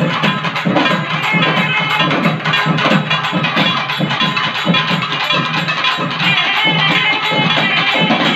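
Live festival drumming: a group of drums beaten in a fast, dense, steady rhythm, with a high wavering melody line over it.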